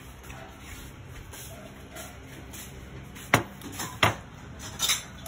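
Ceramic plates knocking and clinking as they are handled and set down: two sharp knocks about three and four seconds in, then a quick clatter near the end.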